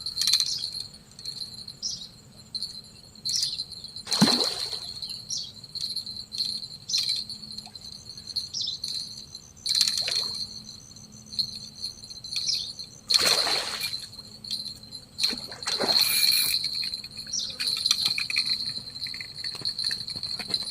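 Insects buzzing steadily on a high, pulsing note, with a few short whooshing rustles about 4, 10, 13 and 16 seconds in.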